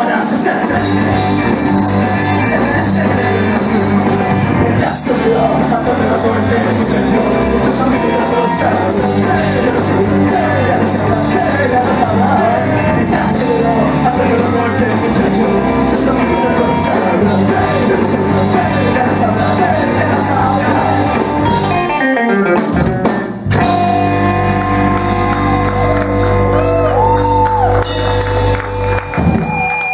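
Live rock band playing electric guitars and drums with a lead singer. The music breaks off briefly about two-thirds of the way through and then comes back in.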